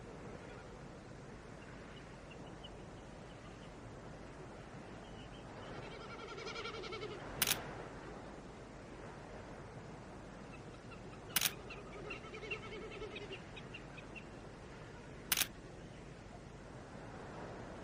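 Three camera shutter clicks, about four seconds apart, over a steady outdoor background, with sheep bleating twice between them.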